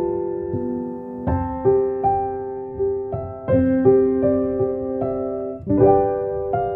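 Background piano music: single notes and chords struck about once a second and left to ring and fade.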